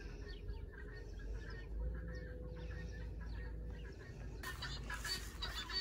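Faint bird calls repeating over a low outdoor rumble. From a little past four seconds in, a louder scratchy rustling takes over.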